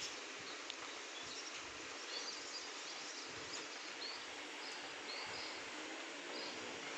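Steady rushing noise of strong wind and rain, with a few short bird chirps scattered through it.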